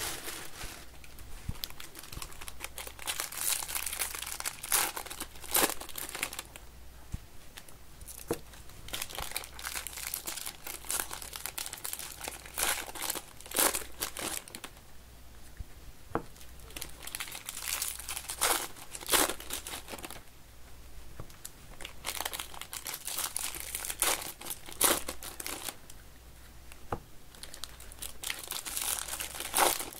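Foil trading-card pack wrappers crinkling and tearing as they are ripped open by hand, in irregular bursts of rustling.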